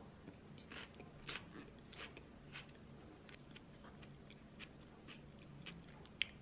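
A person chewing a mouthful of fresh salad with crisp lettuce: soft, irregular crunches. A sharp click near the end, over a faint low hum.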